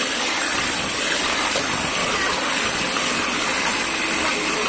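Electric hand mixer running steadily, its beaters whisking a thin batter in a bowl.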